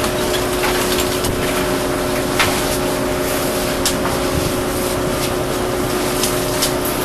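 Research ship's machinery droning steadily under wind and sea noise on the open working deck, with a few sharp knocks from the net gear being handled.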